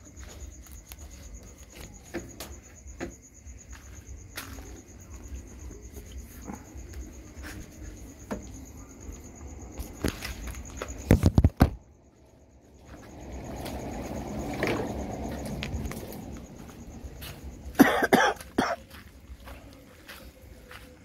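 Insects trilling steadily at a high pitch through most of it, under the shuffling and bumping of someone walking about. A sharp cluster of knocks comes about eleven seconds in, a few seconds of rushing noise follow, and there is clattering near the end.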